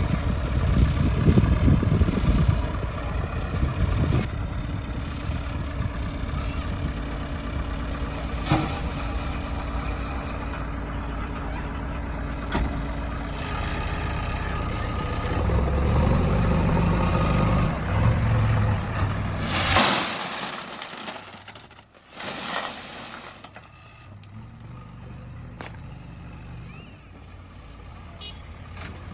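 Diesel engines of heavy machinery running, loud for about twenty seconds with a few short knocks, then cutting away to a quieter engine running.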